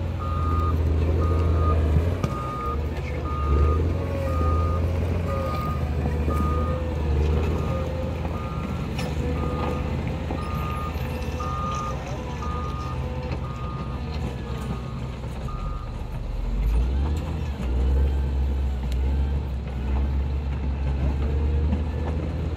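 Caterpillar 12M motor grader's diesel engine running under load while its reversing alarm beeps about once a second as it backs up. The beeping stops about two-thirds of the way through, and the engine note changes and swells a moment later.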